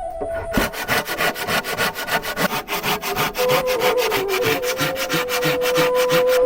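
Saw cutting through wood in rapid, even strokes, starting about half a second in.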